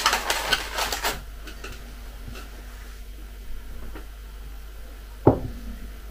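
Crinkling and crackling of a plastic clamshell food tray being handled, stopping about a second in. About five seconds in comes one sharp knock with a short ring: a ceramic mug set down on the table.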